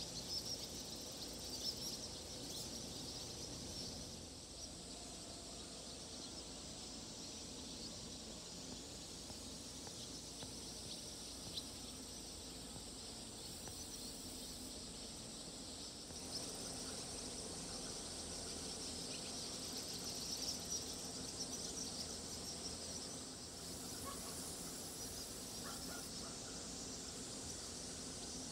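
Faint summer-evening outdoor ambience: a steady high-pitched chirring chorus of insects, with small bird chirps mixed in. It shifts in level a few times as the clips change.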